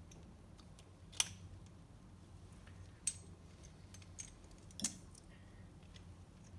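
Small metal jet-pump parts clicking and clinking as they are handled and fitted together on the bench. There are three sharp clicks, the first the loudest, and a few lighter ticks between them, over a faint steady hum.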